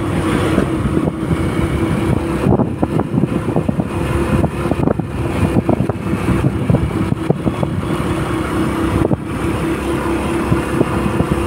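Motorcycle engine running at a steady pace while riding, with wind buffeting the microphone.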